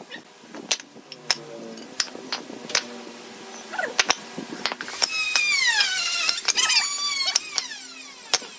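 Woodworking tool sounds: scattered sharp clicks and knocks, then about five seconds in two loud high-pitched whines that fall in pitch.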